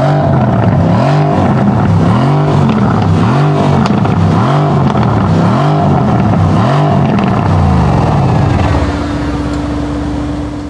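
Mercedes-AMG C63 S Estate's 4.0-litre twin-turbo V8 being revved in quick, repeated blips, each rise and fall about a second long. Near the end the revs stop and the engine drops back to a steady idle.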